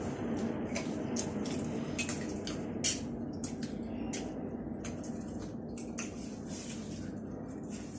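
Spoons clicking and scraping in bowls of wet chatpate while people eat, scattered light clicks that thin out after about three seconds, over a steady low background hum.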